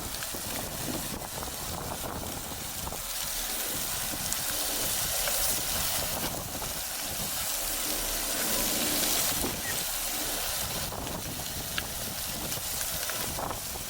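Wind gusting across the microphone in a steady rushing hiss that swells and eases over several seconds.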